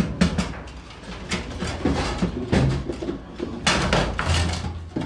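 Table football in play: sharp, irregular knocks and clacks of the hard ball being struck by the figures and hitting the table's walls, with the rods shifting.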